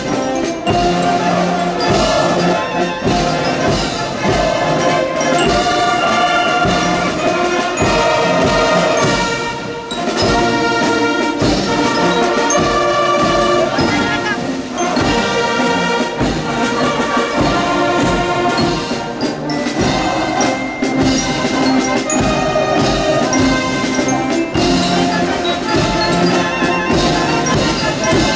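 Military marching band playing a march: brass instruments over a steady drum beat.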